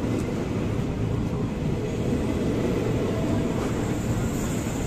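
Commuter electric multiple unit train running past close by, a steady rumble of its wheels on the rails.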